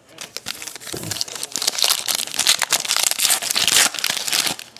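A trading card pack's wrapper being torn open and crinkled by hand: a dense, rapid crackling that builds about a second in and lasts about four seconds.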